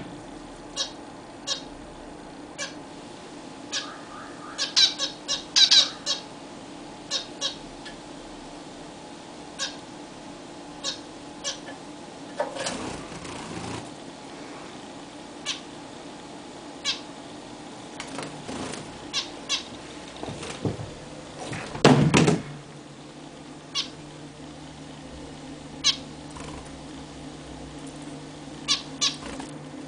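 Zebra finches calling: short, high, nasal beeps, single or in quick pairs, scattered irregularly. A louder noisy burst comes about two-thirds of the way through.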